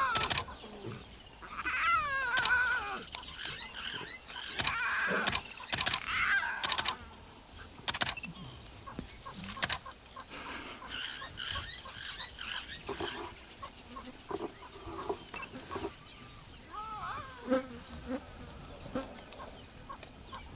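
Steady high-pitched insect drone, with scattered warbling calls and a few sharp clicks in the first half.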